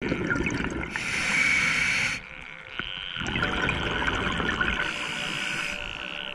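Underwater rushing and bubbling water noise with a steady hiss, dropping away for about a second roughly two seconds in.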